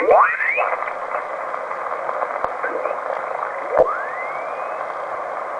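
Icom IC-706MKIIG transceiver receiving LSB on the 80 m band while its VFO is being tuned: steady band hiss through the narrow single-sideband filter, with whistling glides as signals sweep through the passband, one just after the start and a rising whistle about four seconds in.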